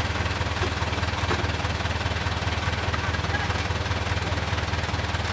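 Off-road 4x4 jeep's engine running steadily at low revs as it crawls along a trail, heard from inside the cab as a low, even drone.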